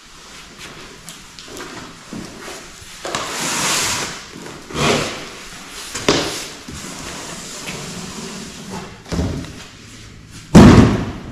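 A cardboard shipping box being tipped over and slid off a heavy boxed battery on a wooden workbench: cardboard scraping and rustling in several swells, with a few knocks and one loud, heavy thud near the end.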